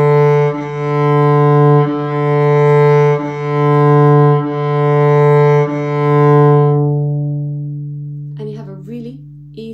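Cello's D string bowed in long, even strokes on one steady low note, with a bow change roughly every second and a quarter. About seven seconds in the bow comes off and the note rings away over the next couple of seconds.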